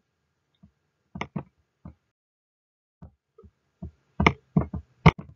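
Several short, sharp knocks and clicks at uneven intervals: two about a second in, a few faint ones in the middle, then a louder cluster near the end.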